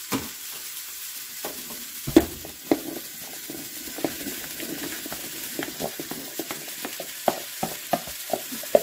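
Ground meat and vegetables sizzling in a pot while diced chayote is scraped in off a bowl with a wooden spoon: a steady frying sizzle under irregular knocks of the spoon and the falling pieces. Two sharper knocks come about two seconds in, and the knocks come more often in the second half.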